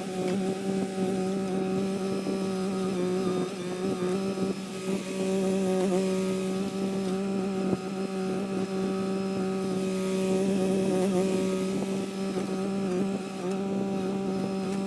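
Kymron XH20D mini-excavator's engine running steadily at working speed while digging out a tree stump, its pitch holding as the loudness rises and dips slightly under the hydraulic load.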